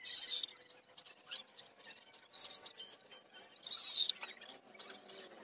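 Paintbrush strokes across a freshly finished wooden tabletop: three short, high squeaky swishes, at the start, about two and a half seconds in and about four seconds in.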